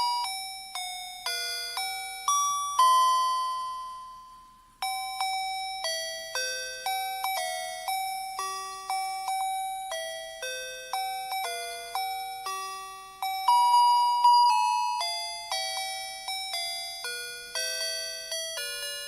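Electronic melody chip of the kind built into Christmas lights, playing a tune in simple beeping notes that each start sharply and fade. A long note dies away about four seconds in, and the tune then starts again.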